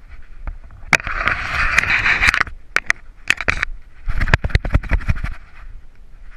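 Jolting and scraping of a dog-mounted GoPro as the dog runs through brush. A scratchy rustling about a second in, with sharp clicks, then a run of hard knocks and low thumps about four seconds in as the camera is shaken violently.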